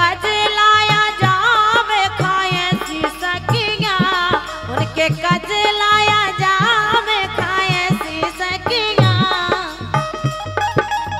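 Live Indian folk music: a dholak hand drum beating a steady rhythm under a long, wavering melody line.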